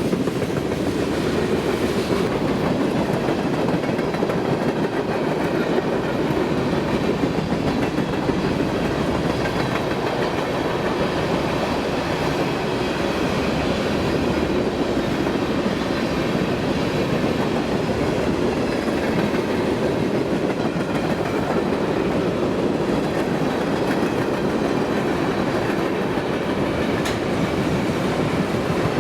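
Freight train cars rolling past at steady speed, the wheels clacking over the rail joints.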